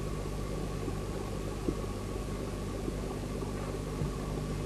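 Steady electrical hum and hiss of an old analog video recording, with a few faint knocks.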